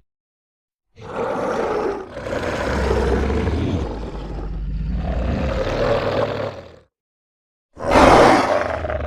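Demon roar sound effects: after a second of silence, a long roar of nearly six seconds with two brief dips, then a short silence and another loud roar starting sharply near the end.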